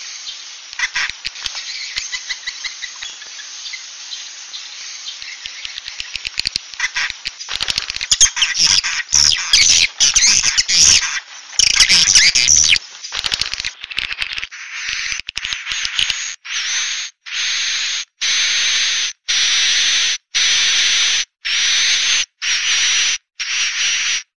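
Recorded swiftlet calls used as a roosting lure ('suara inap') to draw swiftlets into a nesting house. They begin as a busy twittering colony chatter of quick chirps. From about halfway they turn into a regular run of buzzing calls, about one a second, each with a steady high whistle.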